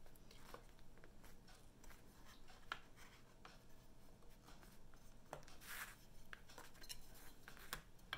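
Faint handling sounds of wooden hanger-frame strips being lined up and pressed together on a table: light taps and clicks, one sharper click nearly three seconds in, as the protruding screw tips seat into the matching holes. A brief soft rustle comes near six seconds.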